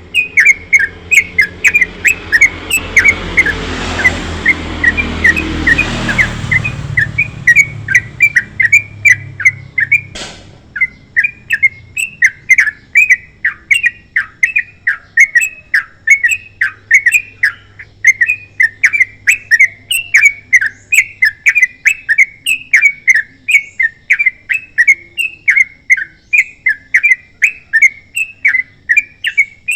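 Yellow-vented bulbul singing without a break, a fast run of short chirped notes about three a second. A low rushing swell of noise rises and fades in the first third, and a single click comes about ten seconds in.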